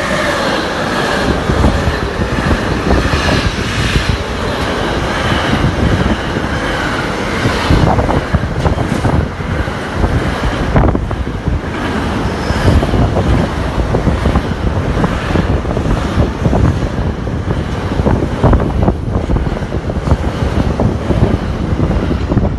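Train passing close by: a steady heavy rumble of wheels on the rails, with many irregular knocks and clatters as the wheels run over the track.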